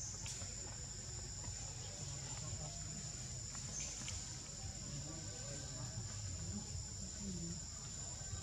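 Insects droning in a steady, unbroken high-pitched chorus over a low background hum.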